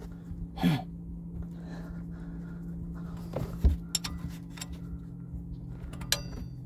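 A man grunting with effort while turning a 2006 Mazda 3's engine over by hand with a combination wrench on a pulley bolt, straining against the engine's compression strokes. Metal tools click a few times, with one short ringing clink near the end, over a steady low hum.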